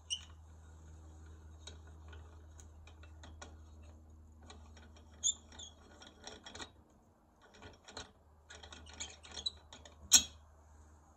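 Hand tools clicking and clinking against metal as screws are worked loose on a Stihl 090 G chainsaw engine, in irregular runs of small ticks with one sharp clink about ten seconds in. A low steady hum sits underneath and fades out around seven seconds in.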